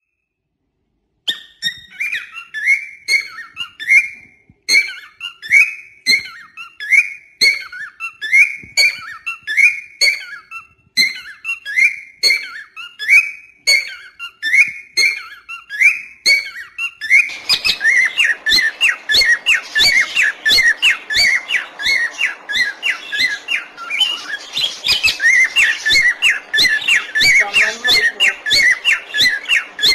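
Parrots calling, starting about a second in. First comes a run of short whistled calls, about two a second. Then, from about seventeen seconds in, a faster stream of shrill calls from an Indian ringneck parakeet plays over background noise.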